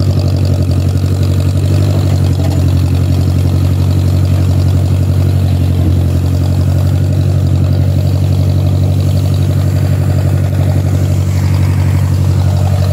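Old Case loader tractor's engine running steadily at an even speed, heard close from the operator's seat.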